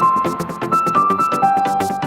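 Upbeat electronic dance background music: a keyboard melody of short held notes over a steady beat.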